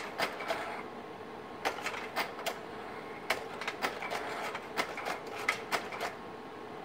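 Kodak Carousel 760H slide projector working its slide-change mechanism: a run of sharp mechanical clicks and clacks in irregular clusters, ending about six seconds in as a new slide comes up. A steady hum from the running projector sounds underneath.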